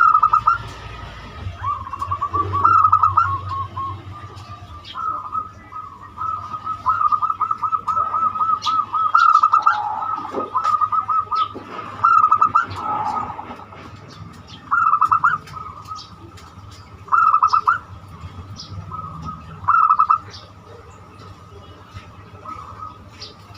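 Zebra dove (perkutut) singing: rapid trilled coos in repeated phrases, running closely together at first, then coming as separate short bursts every two to three seconds. Faint chirps of other small birds sound in the background.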